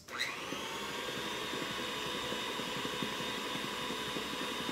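Electric stand mixer switched on, its motor spinning up with a quickly rising whine and then running steadily as the beater mashes boiled potatoes with butter and milk.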